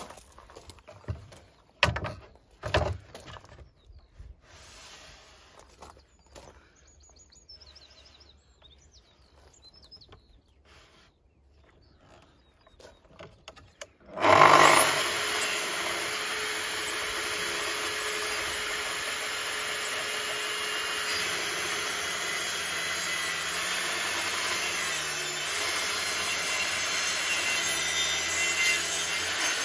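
Two sharp knocks about two and three seconds in. Then, about halfway through, a Festool plunge track saw starts and runs steadily with a high motor whine as it is pushed along its guide rail, cutting wood for about fifteen seconds.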